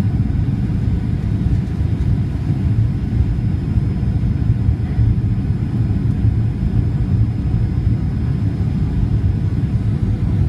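Steady low rumble of a Boeing 737-800's CFM56-7B engines and airflow heard inside the passenger cabin during the descent to land, with a faint steady high tone above it.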